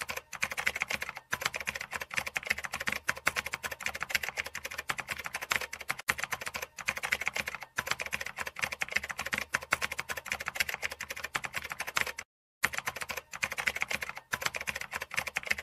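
Rapid, continuous keyboard typing clicks: a typing sound effect laid under on-screen text that appears letter by letter. It breaks off briefly about twelve seconds in, then resumes.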